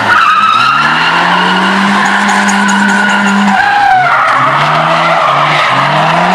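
Drifting cars sliding through a corner: engines revved hard, their pitch climbing, holding high and climbing again, over a sustained high tyre squeal that drops in pitch about four seconds in.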